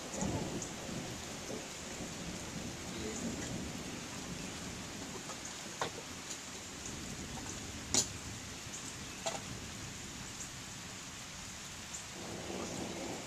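Steady rain falling during a thunderstorm, with low thunder rumbling near the start and again near the end, and a few sharp taps, the loudest about eight seconds in.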